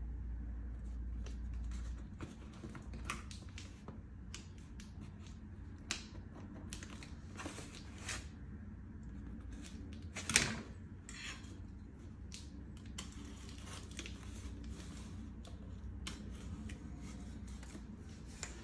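Cardboard shipping boxes handled on a wooden tabletop: scattered taps, scrapes and rustles of cardboard, with one louder scrape about ten seconds in.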